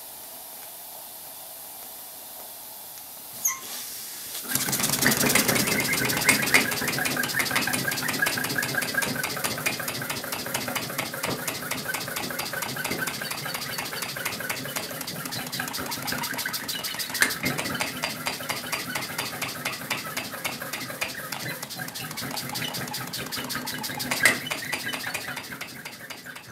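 Glass model steam engine: a steady hiss of steam at first, then after a click about four and a half seconds in the engine runs fast with a loud, rapid, even clatter that keeps up, a sign that steam pressure has built up in the glass boiler. It fades away right at the end.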